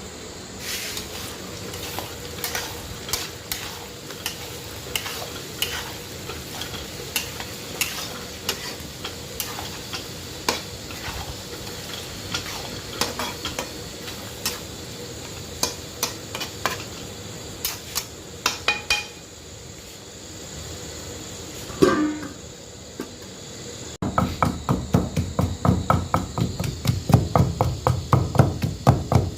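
A utensil clinking and scraping in a cooking pot with light, irregular clicks over a faint sizzle. About three-quarters of the way in, a steady, rapid knocking starts at about four strokes a second.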